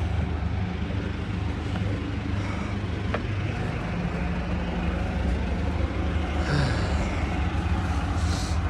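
Heavy diesel engine of the tree crew's equipment running steadily at a low, even drone, with a sharp click about three seconds in and two short hisses near the end.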